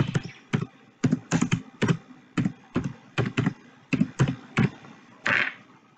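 Typing on a computer keyboard: an uneven run of sharp key clicks as a phrase is typed out. A brief soft hiss comes about five seconds in, just before the typing stops.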